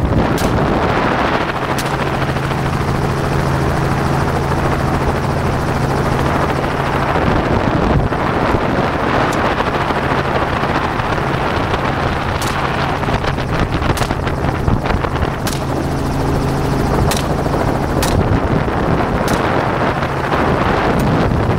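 Helicopter in flight: a steady drone of rotor and engine with wind rush. Sharp rifle shots crack out over it at irregular intervals, about nine of them, most in the second half.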